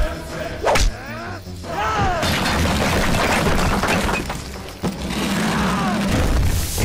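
Action-film fight sound effects: a sharp hit about a second in, then a long crash of breaking and falling debris, over dramatic background music.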